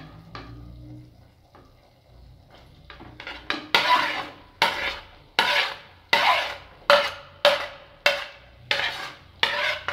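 A spoon knocking and scraping chopped pork bacon off a plate into an enamel pot. The clacks start about three and a half seconds in and come about one every two-thirds of a second, some leaving a brief ring.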